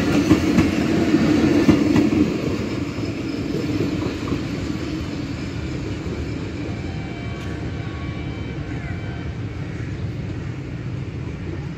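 Pakistan Railways passenger coaches rolling past, wheels running on the rails. The sound is loudest at first and drops about two seconds in as the last coach moves away, leaving a steady, fainter rumble.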